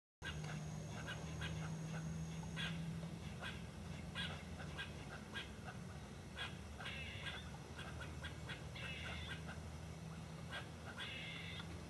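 Bobcat lapping water at a creek's edge: a run of quick, irregular soft clicks, with a low steady hum beneath.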